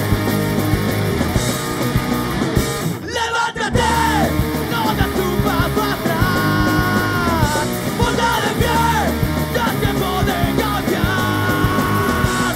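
Punk rock band playing live, with singing over guitars, bass and drums. The band drops out briefly about three seconds in, then comes back in.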